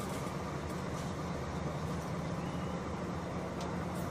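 Scania K400 coach's diesel engine idling steadily, with an even low pitch.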